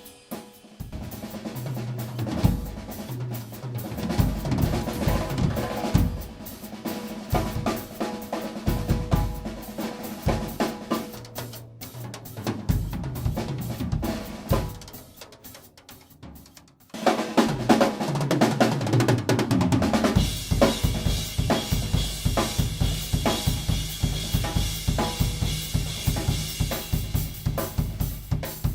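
Acoustic drum kit played solo: tom fills, snare hits and bass drum, with cymbals. The playing dips quieter around the middle, then comes back with a fast, steady stream of strokes under constant cymbal wash for the last third.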